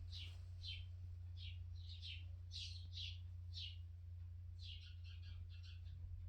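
A bird chirping: a faint series of short falling chirps, about two a second, running into a quicker burst near the end.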